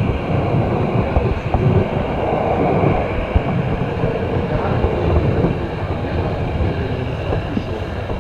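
O gauge model train wagon rolling along the layout track, heard from on board: a steady rumble of wheels on rail with irregular small clicks.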